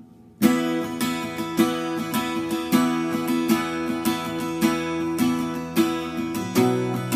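Steel-string acoustic guitar with new D'Addario EXP19 coated strings in standard tuning, strummed in a steady rhythm. It starts suddenly about half a second in and changes chord near the end.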